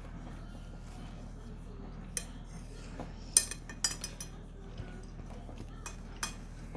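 Eating utensils clinking against a dish, about eight sharp clicks scattered through the middle, the loudest about halfway through.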